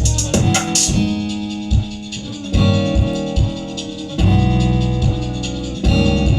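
Beat music with piano or keyboard chords, deep bass notes and drum hits, in a trap-and-amapiano blend; the high hi-hats drop out about a second in and come back near the end.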